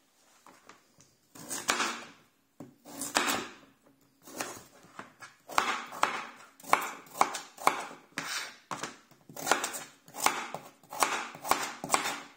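Kitchen knife cutting a peeled raw potato into cubes on a cutting board: repeated swishes as the blade goes through the potato, each ending in a sharp tap of the blade on the board. The cutting starts about a second and a half in and gets quicker toward the end.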